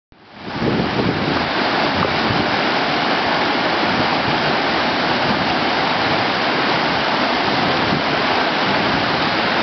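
Whitewater rapids rushing steadily: the roar of a foaming river wave, fading in over the first second and then constant.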